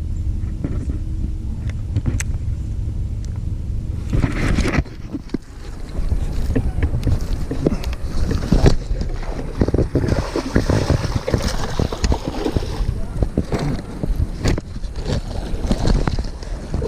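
Wind buffeting the microphone on a small fishing boat, a heavy, uneven rumble with scattered knocks and bumps against the boat. A steady low hum runs under it for the first four seconds and then stops.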